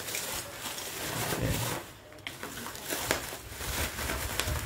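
Plastic bubble wrap crinkling and rustling as it is handled and pulled open, with a brief lull about two seconds in.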